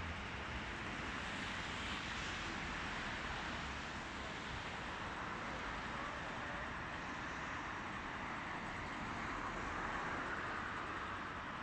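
Steady city street noise with traffic hum, and a car driving past near the end.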